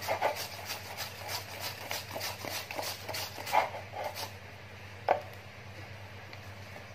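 Jicama being grated by hand on a handheld grater over a plastic bowl: quick rasping strokes, about three a second, that thin out after about four seconds. A single sharp knock about five seconds in is the loudest sound.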